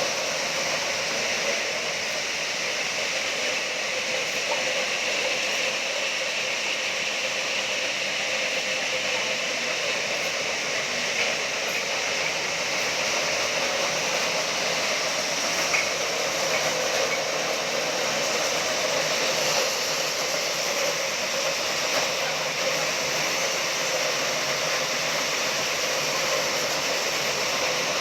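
Steady, even machinery noise with a strong hiss, running without break and with no distinct hammer blows.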